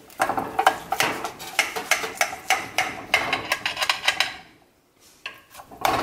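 A metal utensil tapping and scraping against a glass baking dish as lasagna is cut, in quick clicks and short scrapes. It stops briefly near the end, then starts again.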